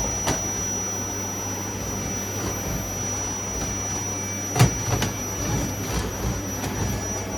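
Household vacuum cleaner running steadily, its motor giving a high, even whine over a low hum. A sharp knock a little past the middle stands out above it.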